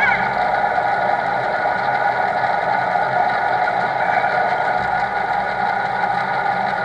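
Milling machine running, its end mill cutting a radius in a workpiece clamped on a rotary table: a steady machine whir with several high ringing tones.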